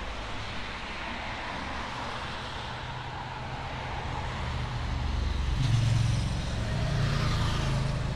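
A motor vehicle driving on the road: a steady rumble of engine and road noise that swells louder about two-thirds of the way through.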